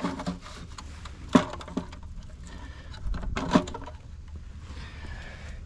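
A few sharp clicks and knocks from something being handled, over a steady low hum.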